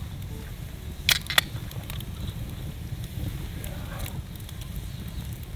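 Wood fire crackling, with two sharp pops close together about a second in, over a steady low rumble.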